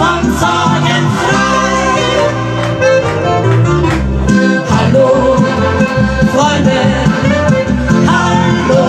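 Live Oberkrainer-style folk band playing a polka-style tune led by accordion, with two women singing the melody together into microphones.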